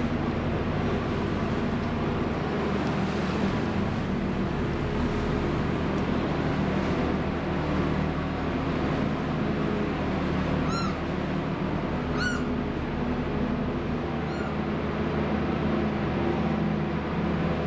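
Passenger boat's engine running with a steady low drone. A little past halfway, three short high cries sound, the second the loudest and the third faint.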